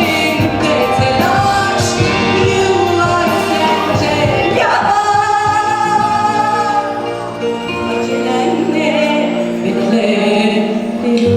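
A woman singing a Turkish song with instrumental accompaniment.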